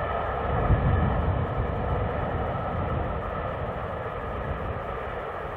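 Peppercorn A1 Pacific steam locomotive 60163 Tornado running at speed with its train, a steady distant roar. Gusty wind buffets the microphone, with a low swell about a second in.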